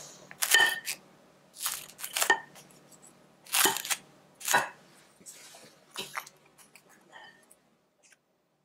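A wooden spoon breaking the thin, crispy fried-batter lattice around pan-fried dumplings, crackling in about seven short crunches over the first six seconds, then quietening.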